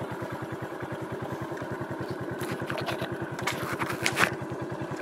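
Honda Pop 110i's small single-cylinder four-stroke engine idling steadily, an even putter of about fourteen beats a second.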